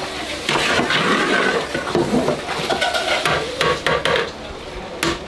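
A long-handled metal ladle stirring in a large aluminium cooking pot, scraping and knocking against the pot as it is pulled through the thick stew.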